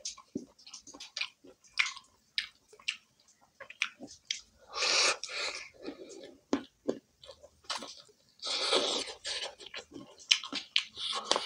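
Close-up chewing and mouth clicks from a person eating rice and fried chicken by hand, with many short wet smacks throughout. Two longer airy, hissing sounds come about five and nine seconds in.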